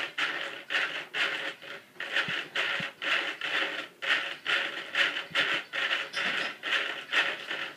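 Small radio-control servos in a GWS F-15 foam model jet whirring in short bursts, about two a second, as they swing the horizontal tail surfaces back and forth.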